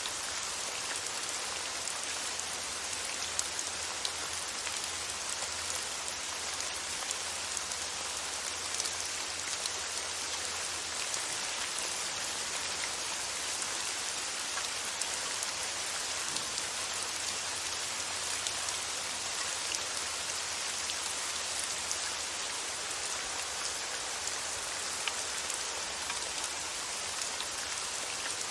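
Steady rain falling, a dense even hiss with many small drops pattering on a surface.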